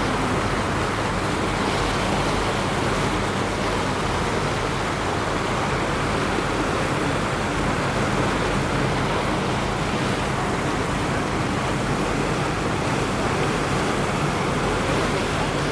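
River tour boat under way: a steady rush of water and wind noise, with a low hum underneath.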